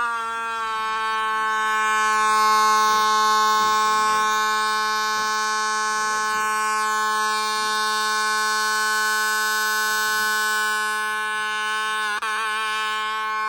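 Homemade 12-volt electronic siren through a small speaker, sounding one steady buzzy tone rich in overtones. It wavers briefly near the end, then cuts off suddenly.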